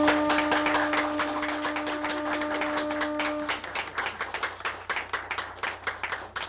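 Crowd applauding, with one steady horn blast over it that stops about three and a half seconds in, sounding as the boat is launched. The clapping thins out toward the end.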